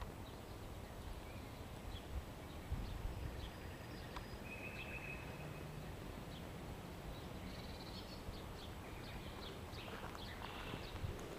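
Faint outdoor ambience: a few short, high bird chirps and whistles scattered through it, over light footsteps on a path and a low steady rumble.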